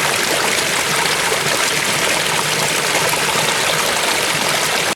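Waterfall: a loud, steady rush of falling water, even and unbroken.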